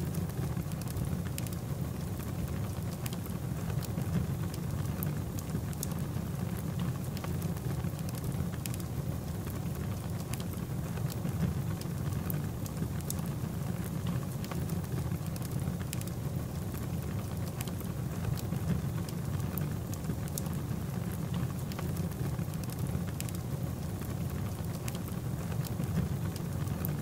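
Fire sound effect: a steady low rumble with many scattered sharp crackles, like a burning wildfire.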